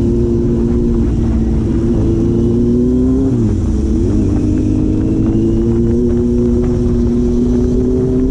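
Four-cylinder engine running under way at steady revs; about three seconds in the revs dip briefly, then climb slowly as it pulls again.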